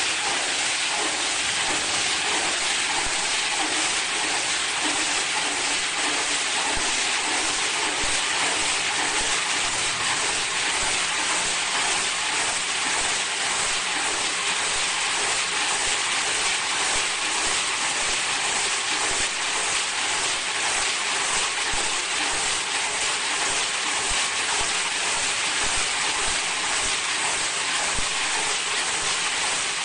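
Vertical high-speed film slitting and rewinding machine running steadily, its rollers and plastic film making an even, high hiss.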